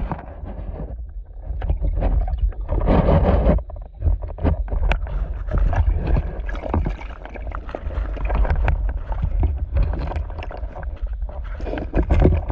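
Water sloshing and rumbling against the microphone, with many small knocks and a louder rushing splash about three seconds in.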